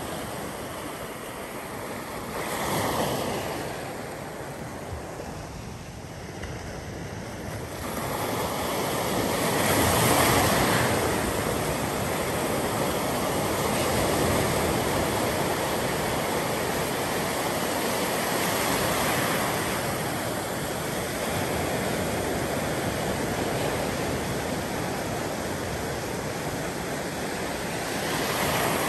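Small waves breaking and washing up the shore of a calm sea. The steady hiss of the surf swells louder as waves break, about three seconds in, loudest about ten seconds in, and again near the end.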